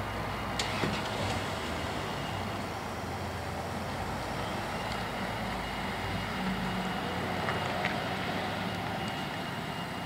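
Pickup trucks driving slowly past, one towing a loaded trailer: steady engine and tyre noise with a low rumble, and a couple of faint clicks.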